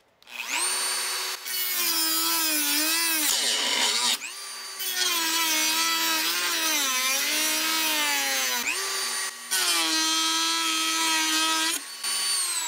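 Dremel rotary tool cutting metal with a thin abrasive cutoff disc: the motor whine spins up about a quarter second in, then wavers and sags in pitch as the disc bites, with four brief lifts off the work, and winds down near the end. The disc wears down in diameter during the cut without breaking.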